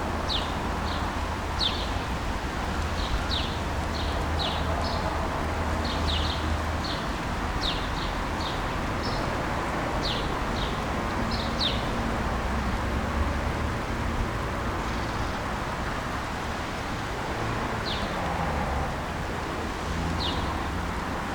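Small birds chirping in short, quick notes, many in the first half and only a few later, over the steady hiss of a rainstorm and a low rumble of distant traffic.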